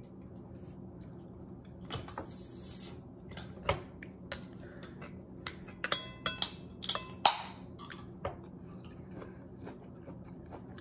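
Metal spoon clinking against a ceramic plate and bowl while eating, with a cluster of sharp, ringing clinks about six to seven seconds in and quieter chewing between.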